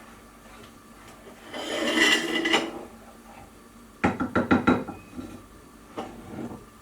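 Spoon scraping round a mixing bowl for about a second, then a quick run of clinks and knocks against the bowl about four seconds in, with a few lighter knocks after.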